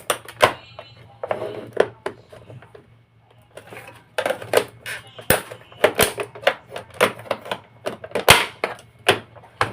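Plastic clicks and knocks from the housing parts of an Electrolux ProSilent vacuum cleaner being handled and pried apart. The sharp taps come sparsely at first, then in a fast, busy run over the last half.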